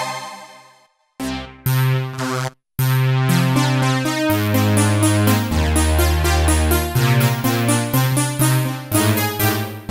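Roland XPS-30 synthesizer keyboard playing sound demos: a tone fades out to silence, two short snippets sound with a brief gap, then a continuous accompaniment with a bass line and a steady beat starts about three seconds in.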